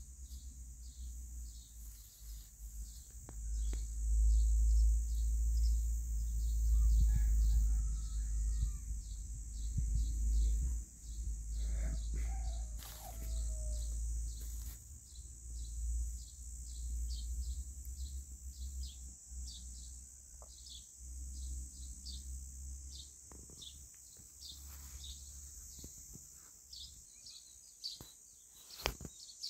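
Outdoor ambience: wind rumbling on the microphone, strongest in the first half, under a steady high insect chirring that pulses about two or three times a second. A few faint bird chirps come through now and then.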